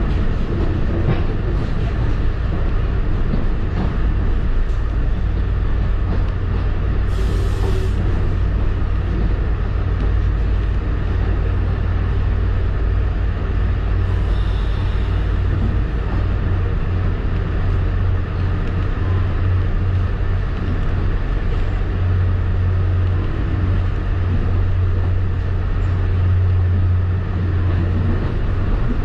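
Passenger train heard from inside the coach, a steady low rumble of the train rolling along the track. A short hiss breaks in about seven seconds in.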